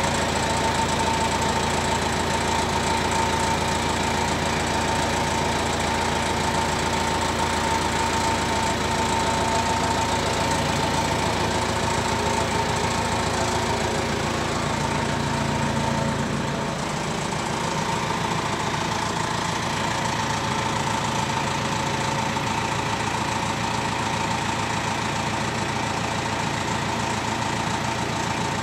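An engine running steadily at idle, with a deep pulsing rumble and a constant whine above it; the rumble drops away about seventeen seconds in while the whine carries on.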